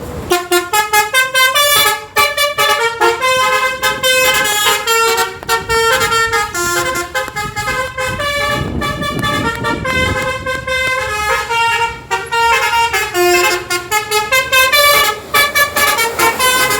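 Bus telolet horn, a set of musical air horns, playing a fast tune of short stepped notes with several tones sounding together. A rushing noise swells underneath around the middle.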